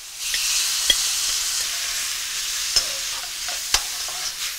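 Shrimp in a hot wok sizzle hard as a bowl of wet stir-fried vegetables is poured in, the hiss slowly easing off. A metal skimmer clicks against the wok a few times as it stirs.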